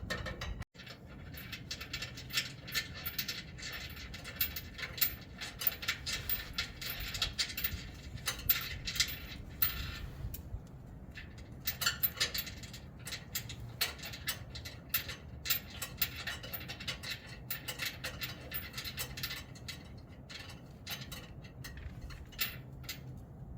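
Irregular small metallic clicks and clinks as bolts and washers are handled and threaded by hand into a stainless-steel catalytic converter shield, easing off briefly about ten seconds in.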